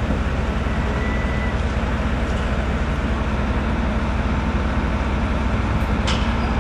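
Heavy diesel engines of police armoured vehicles and water-cannon trucks running in the street below, a steady low rumble, with a single sharp tick near the end.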